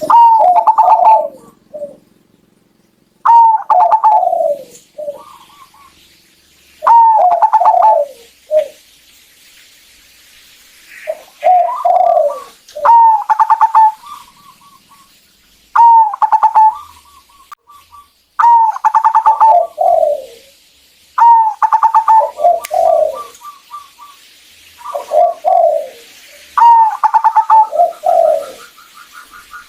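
Zebra dove (perkutut) cooing: about nine phrases of falling, rolling coos, roughly one every three seconds, several ending in a quick run of short higher notes.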